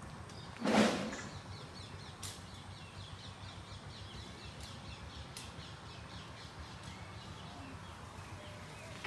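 Outdoor village ambience with small birds chirping faintly in the background. One loud, short harsh sound comes about a second in.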